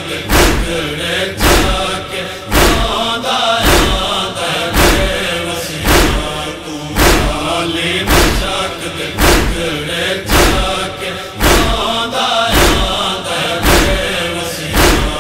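A chorus of men's voices chanting a noha refrain in unison, with a steady chest-beating (matam) thump about once a second.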